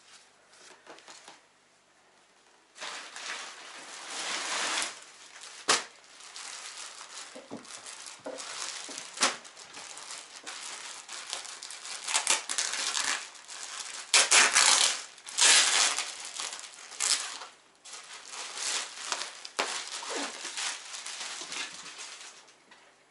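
Clear plastic packaging bags crinkling and rustling in irregular bursts with sharp crackles, starting about three seconds in, as clothes are unwrapped and folded.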